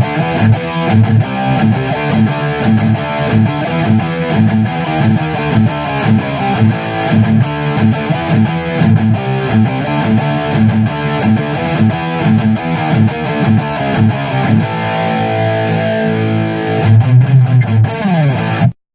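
Heavily distorted electric guitar, an ESP LTD EX-50 through a Digitech Death Metal distortion pedal, playing a metal riff of rhythmic chugging low notes. About fourteen seconds in it moves to held notes, and it ends with a sliding drop in pitch and a sudden stop.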